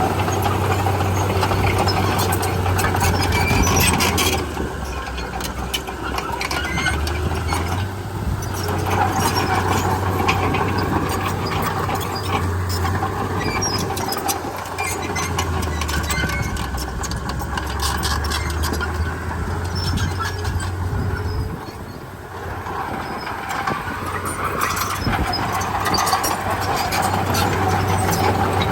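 Komatsu D31P crawler bulldozer working, its diesel engine running with a note that rises and falls under load, over squealing and clanking steel tracks.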